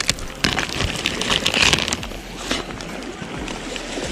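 Thin plastic wrapping crinkling and rustling in the hands as a hydrofoil fuselage is pulled out of its bag, dense for about the first two seconds and then dying away. Steady wind and surf noise sits behind it.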